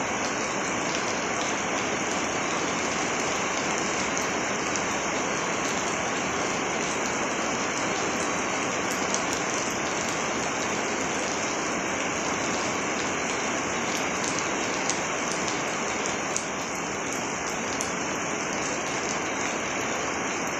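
Heavy rain falling steadily and splashing on a paved courtyard: a dense, even hiss with scattered sharper drop ticks.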